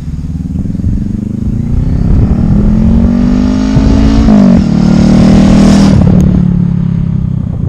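Motorcycle engine revving under acceleration. Its pitch climbs, drops suddenly about four seconds in, then holds and slowly sinks, with a short sharp click about six seconds in.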